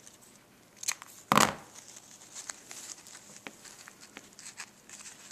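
Scissors cutting ribbon: a small click about a second in, then a louder sharp snip, followed by faint crinkling and ticking as the ribbon is handled.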